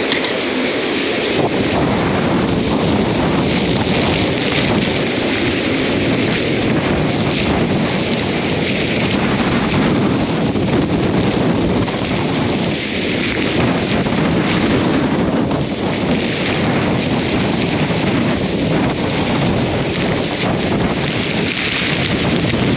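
Hurricane wind blowing steadily and loudly, with wind buffeting the microphone and slight surges in the gusts.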